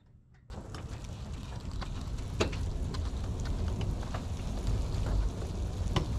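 Wind rumbling on the microphone over a crackling noise, starting about half a second in, with scattered sharp clicks as a light plane is hand-towed on asphalt by a tow bar on its nose wheel.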